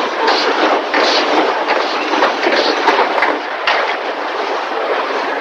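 Car body shop noise: a dense, continuous clatter and hiss of metalworking, with irregular metallic knocks throughout.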